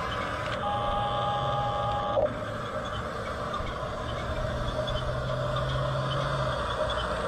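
Hunia 1569 toy RC bulldozer operating: steady electronic tones and a low motor hum that comes and goes, with a brief knock about two seconds in.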